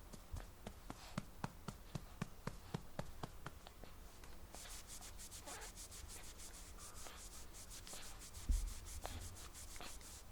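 A hand patting a baby's back gently, about three soft pats a second, to bring up a burp after a feed. From about four seconds in it changes to quicker rubbing strokes on the baby's clothing. A low thump comes about eight and a half seconds in.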